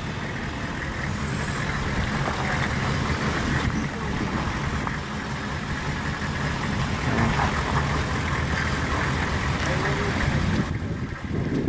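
Hummer H1's engine running low and steady as the truck crawls forward at walking pace on a dirt trail.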